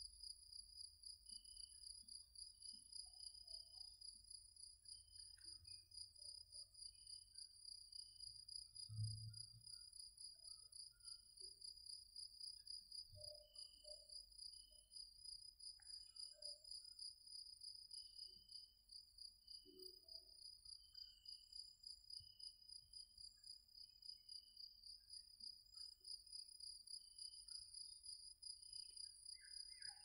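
Cicadas singing: a faint, steady, fast-pulsing high buzz that never lets up. Scattered faint short chirps sound over it, and there is one soft low thump about nine seconds in.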